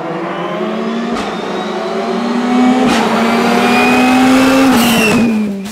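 Mitsubishi hatchback rally car engine revving hard as the car accelerates toward and past, its pitch climbing steadily, with a sharp crack about a second in and again about three seconds in. Near the end the pitch drops and the sound fades as it goes by.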